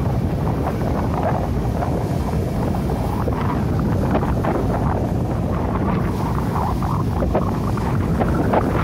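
Wind buffeting the microphone over waves breaking on a pebble beach, a steady rough rumble with uneven gusts.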